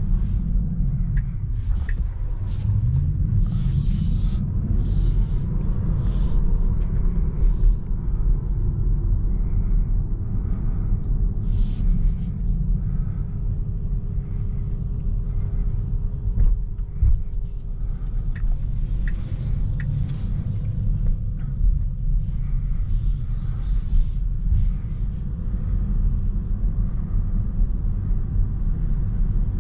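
Cabin road noise of an electric Tesla Model 3 Long Range driving slowly on a rough, patched lane: a steady low rumble from the tyres and suspension, with brief crackling bursts now and then. There is no engine sound.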